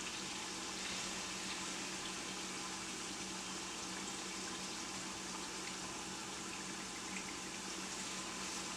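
Burger patties frying in a pan of grease, giving a steady sizzle, with a faint steady hum underneath.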